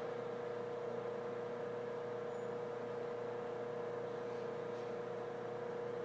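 Water flow table's circulation pump running with a steady hum, one constant mid-pitched tone over an even rush of noise.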